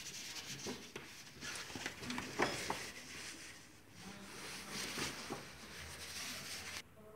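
Pen scribbling fast on a sheet of paper in quick scratchy strokes, with the paper rustling as it is handled.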